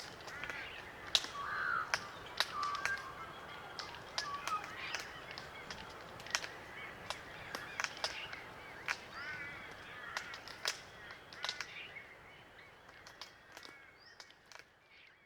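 Small flock of glossy black cockatoos feeding: frequent sharp clicks of their bills working Allocasuarina cones, with soft creaking, grating calls. The sound fades out near the end.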